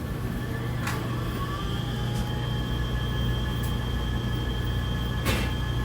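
Steady low hum of laundromat washers and dryers running, with a faint high whine joining about a second in and two sharp clicks, one about a second in and one near the end.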